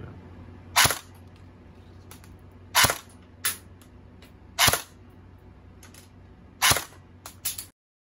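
M4-style AEG electric airsoft rifle firing single shots on semi-auto, four sharp shots about two seconds apart, with fainter clicks after some of them. The 0.23 g plastic BBs are being shot through a chronograph for velocity readings. The sound cuts off suddenly near the end.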